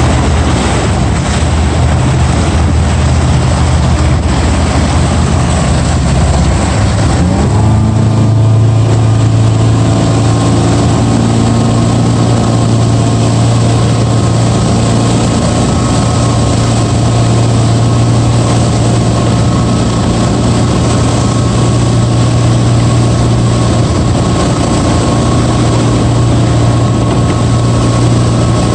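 Motorboat engine running slowly, then throttled up about a quarter of the way in: its pitch rises and settles into a steady run at towing speed. Under it is the rush of water from the wake.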